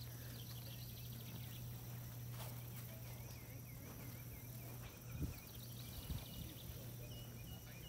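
Quiet outdoor background of small birds chirping and warbling over a steady low hum, with a few soft low thumps about five and six seconds in.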